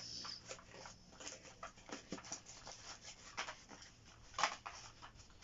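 Packaging rustling and crinkling, with irregular light clicks and knocks, as the contents of a jigsaw box are handled and unwrapped; one sharper knock comes near the end.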